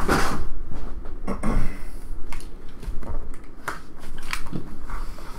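Crackling, rustling and cardboard scrapes of a trading-card hobby box being unsealed and its lid lifted open by hand, in a run of short crackles and clicks.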